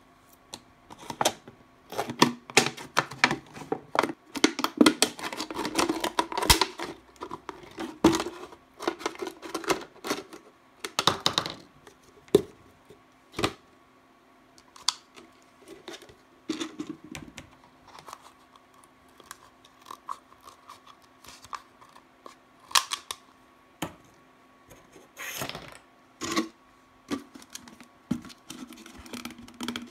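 Thin plastic drink bottle crinkling and crackling as it is handled and cut apart with scissors: a dense run of snips and crackles over the first dozen seconds, then scattered ones with pauses between.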